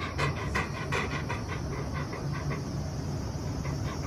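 Great Pyrenees panting fast with its mouth open, tired from rough play. The panting stops for about a second in the middle and starts again near the end.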